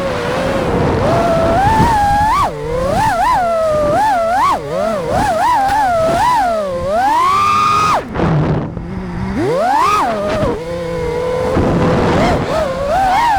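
A 5-inch FPV quadcopter's brushless motors whining, the pitch swooping rapidly up and down with the throttle. Just after 8 s in, the motor sound drops away and then climbs steeply back up: a throttle chop and punch.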